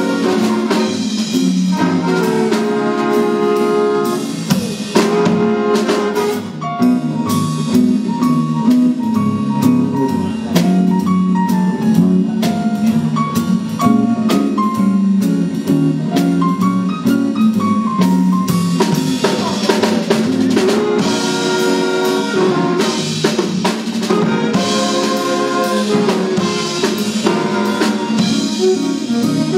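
Big band playing swing jazz live: saxophone, trombone and trumpet sections punching out ensemble chords over drum kit, bass, guitar and keyboard. Through the middle it thins to a single melodic line over the rhythm section before the full horn sections come back in.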